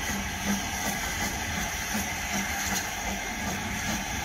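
Narrow-gauge steam tank locomotive No. 190 moving slowly away, with a steady hiss of steam and soft exhaust beats about two or three a second.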